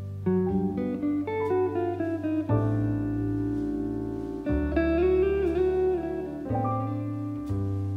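Background music: a plucked guitar melody over a low bass line that changes note every second or two.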